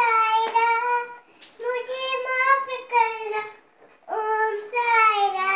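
A young child singing unaccompanied, in drawn-out phrases with short pauses between them.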